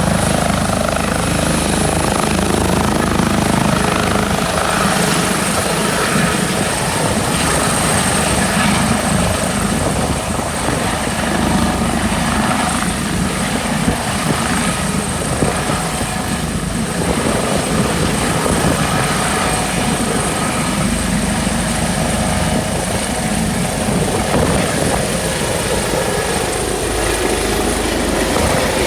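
Air ambulance helicopter running steadily, its turbine engines whining high over the beat of the rotor, loud and continuous with no rise or fall.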